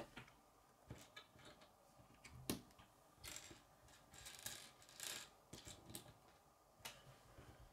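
Faint, irregular small clicks and taps of plastic K'nex rods and connectors being handled and pressed together on a wooden table, about eight in all.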